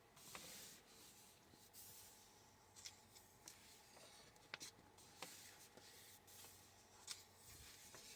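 Faint rustling and light ticks of paper book pages being handled and turned.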